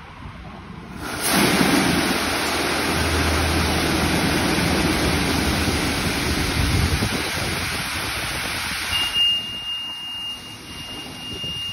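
Machinery of a PDQ LaserWash 4000 touchless car wash bay: a loud, steady rushing hiss like spraying water or blowing air starts suddenly about a second in and drops away after about nine seconds, leaving a thin steady high whine to the end.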